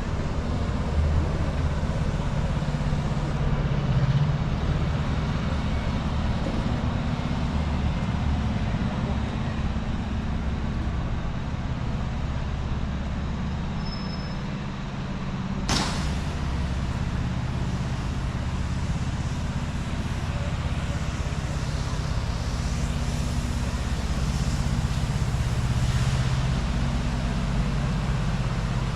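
City street traffic: a steady low engine rumble from road vehicles, with one sharp click or knock about sixteen seconds in.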